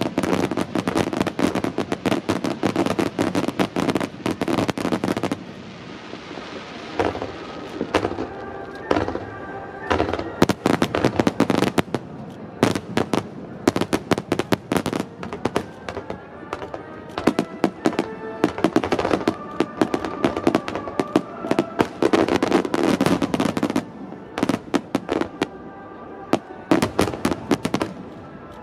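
Fireworks grand finale: dense, rapid volleys of shell bursts and crackling, many overlapping at once. The barrage thins briefly about five seconds in, then builds again.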